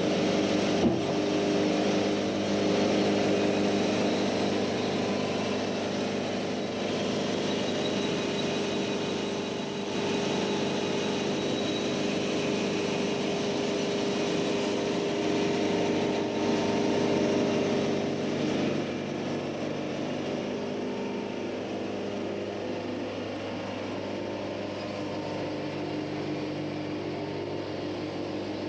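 Diesel engine running steadily under load, with a sharp click about a second in, easing a little in loudness about two-thirds of the way through.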